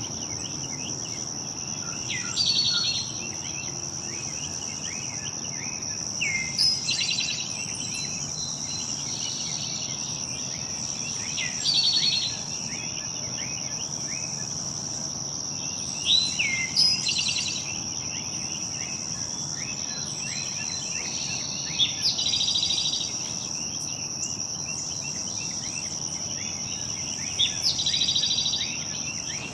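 Insects trill steadily and high-pitched throughout, while a songbird repeats a short song, a sharp falling note then a quick trill, about every five seconds, six or seven times in all. Fainter bird chirps sit underneath.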